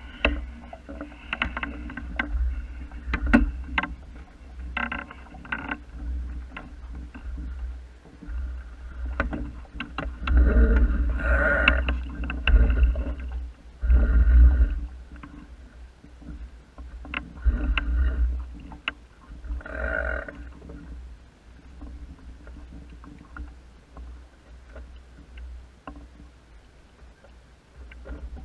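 Wind buffeting the microphone and water lapping and gurgling against the wooden hull of a small sailing dinghy under way, in uneven swells, with scattered light knocks.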